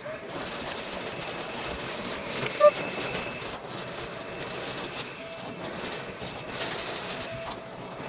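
Milwaukee M18 FUEL dual-battery wet/dry shop vacuum running on its low setting, with wood chips rattling as they are sucked up the hose. A short, high chirp sounds about two and a half seconds in.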